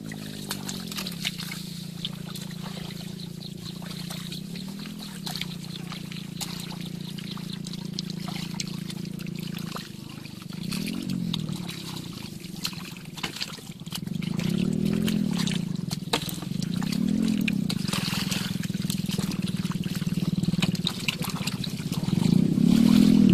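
Muddy water trickling and splashing as people wade and grope through a shallow mud pond by hand, over a steady low motor hum that swells in pitch now and then.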